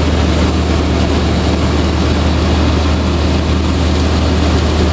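Old lifted Chevrolet Suburban's engine idling steadily, a constant low hum.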